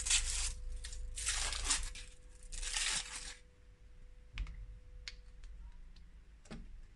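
Chocolate bar wrapper being torn open and crinkled in three rustling bursts over the first three seconds, then a few short snaps as the chocolate bar is broken into pieces.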